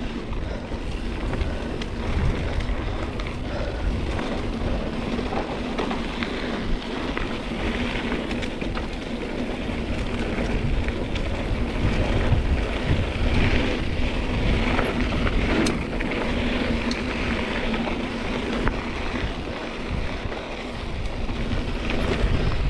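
Mountain bike rolling along a loose dirt trail: wind buffeting the microphone over the tyres on dirt and small rattles and clicks from the bike, with a steady hum.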